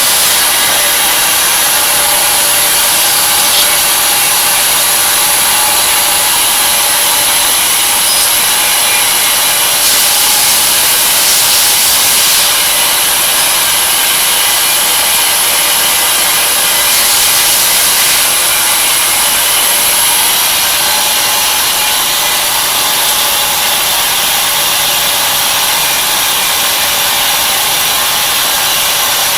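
Tree Journeyman 250 CNC milling machine running while cutting an aluminum wheel: a loud, steady hiss with a thin, high whine on top. The noise grows briefly brighter twice, for a second or two each time.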